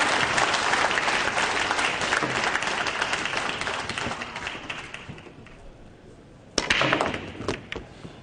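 Audience applause dying away over the first five seconds or so. About six and a half seconds in, a pool break shot: a sharp crack as the cue ball hits the rack, then the balls clicking and clattering against each other.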